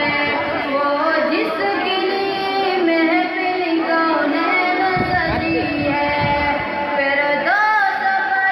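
A boy singing a naat, an Urdu devotional song in praise of the Prophet, solo into a microphone, holding long notes with ornamented glides between them.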